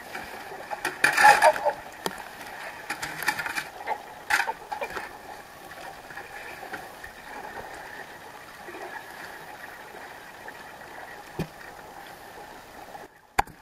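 Kayak paddle strokes splashing in the sea, with water washing around the hull; louder splashes about a second in and about four seconds in, then a steady low wash.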